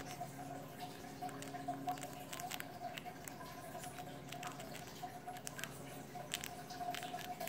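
Hamster gnawing a pretzel held in its paws, making faint, irregular little crunches and clicks as it bites off pieces to stuff into its cheek pouches. A steady faint hum runs underneath.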